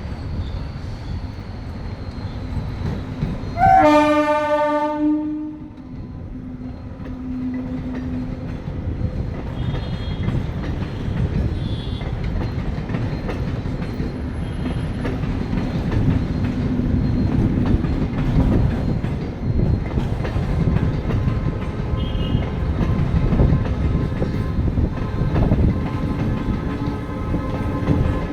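Passenger train running with a steady low rumble, and a loud horn blast about four seconds in lasting a second or two. The rumble grows louder after the horn and holds.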